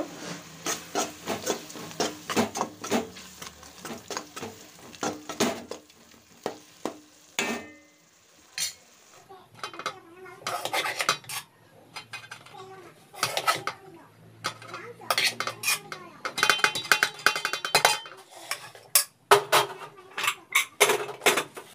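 A metal serving spoon scraping and clinking against the inside of metal cooking pots as cooked rice is scooped out of a pressure cooker into a large aluminium pot. The clatter comes in bursts, with a short lull about six seconds in.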